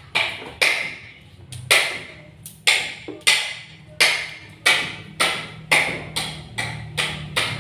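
A run of sharp knocks, about one to two a second and coming faster near the end, each with a short ringing tail.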